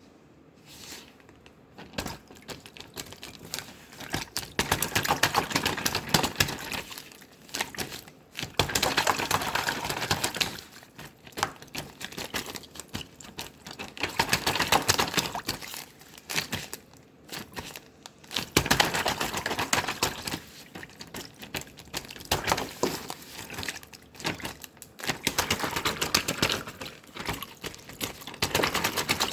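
Slime being pressed, squeezed and folded by hand, giving dense crackling and popping clicks. They come in waves of a few seconds with short pauses between.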